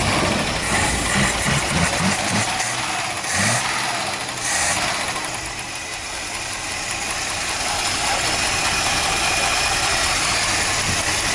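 Carbureted inline-six running on its first start after sitting for about seven years. It is uneven for the first few seconds, then settles into a steady idle.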